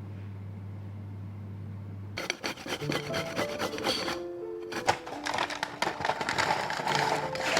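A low steady hum, then about two seconds in, rapid rasping and scraping strokes start and keep going over soft background music notes.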